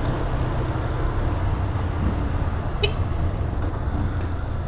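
Yamaha Fazer 250's single-cylinder engine running steadily at low revs under way in traffic, with road and wind noise. A short sharp click about three seconds in.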